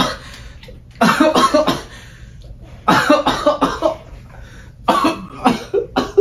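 A man coughing and retching in three bouts about two seconds apart, each a quick run of rapid coughs: a faked fit of throwing up.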